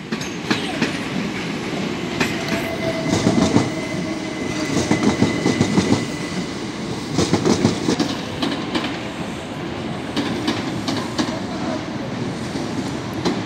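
Passenger train running over the tracks, its wheels clicking and knocking irregularly over rail joints and points with a steady rumble. A faint steady whine sounds for a few seconds in the first half.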